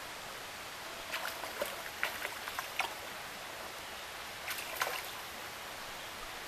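Sharp splashes in shallow water, a cluster from about a second in to three seconds and another near five seconds, as a landed brown trout is let go from a landing net, over the steady run of the stream.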